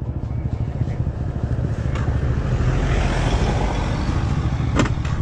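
Motor vehicle engine running steadily close to the microphone, a dense rumble, with two short knocks, one about two seconds in and one near the end.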